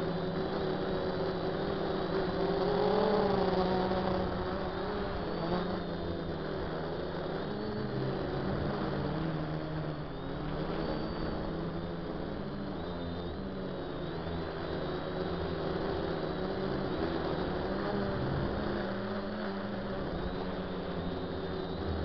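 DJI F450 quadcopter's motors and propellers humming in flight, the pitch wandering up and down, a little louder and higher about three seconds in.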